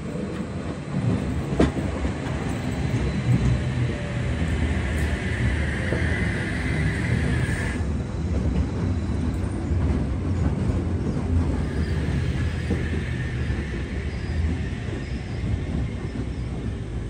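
Sydney Trains electric double-deck passenger train running along a curved platform with a steady low rumble. A high squeal, likely the wheels on the curve, rises about four seconds in and cuts off suddenly about eight seconds in, then returns more faintly later.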